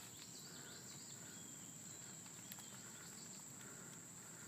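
Faint outdoor ambience: a steady, high-pitched insect drone, with a single faint click about two and a half seconds in.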